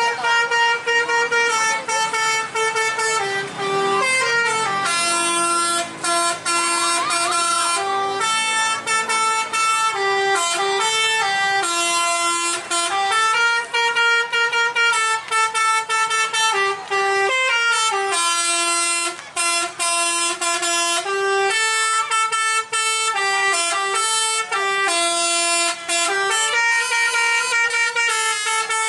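Tour buses' basuri 'telolet' musical air horns sounding almost nonstop, answering one another in tunes of held notes that step to a new pitch every second or so, with only brief breaks.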